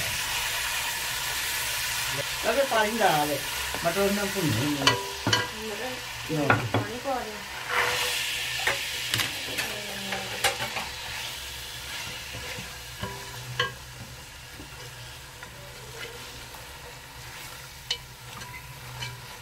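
Spiced masala frying in hot oil in a granite-coated pot, sizzling while a spatula stirs and knocks against the pot with sharp clicks. The sizzle flares about eight seconds in, as green peas go into the oil, then dies down to a softer frying hiss.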